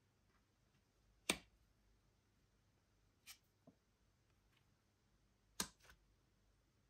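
Playing cards being flicked over and laid down on a table mat: a few short sharp card snaps, a loud one about a second in, a softer one past three seconds, and a loud double one near the end, with near silence between.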